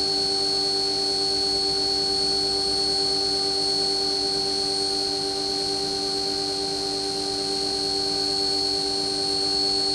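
CNC milling machine spindle running a 1/8 inch four-flute end mill through aluminum, cutting the outside profile of a coaster: a steady, high-pitched machine whine with several steady tones.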